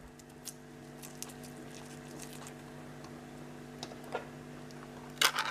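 Sliced onion dropped by hand onto salad leaves in a plastic bowl: faint scattered taps and rustles over a steady low hum. There is a quick cluster of louder clicks about five seconds in.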